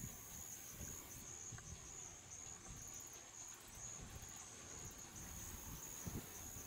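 Night-time insect chorus: a steady high trill, faint, over a soft low rumble.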